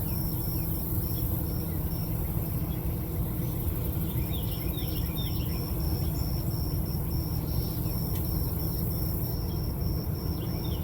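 Steady low rumble of background noise with insects chirping in an even high pulse, about three times a second, and a few short bird chirps about four seconds in.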